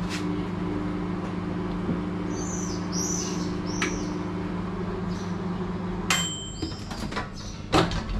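Bluesky microwave oven with a mechanical dial timer running with a steady hum. About six seconds in, the hum stops and the timer's bell dings once. Near the end there is a sharp clack as the door latch is released and the door swings open.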